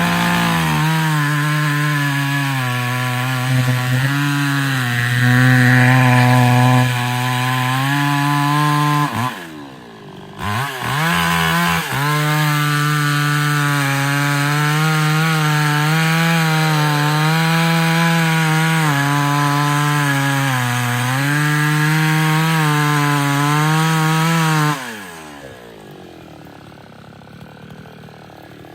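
Chainsaw engine at full throttle cutting into wood, its pitch sagging and recovering under load. About nine seconds in the throttle is let off, with a couple of quick revs, then it goes back to full throttle for about thirteen seconds before dropping to idle near the end.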